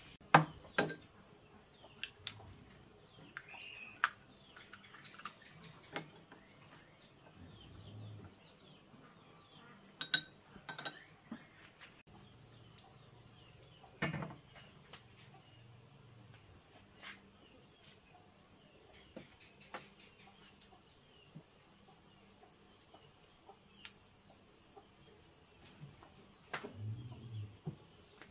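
Crickets trilling steadily, with scattered sharp clicks and knocks of things being handled, the loudest near the start and about ten seconds in.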